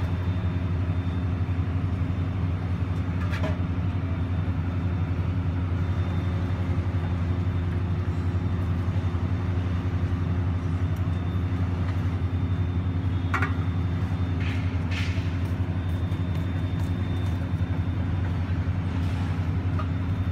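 Steady low mechanical hum, even and unchanging, with a few faint clinks.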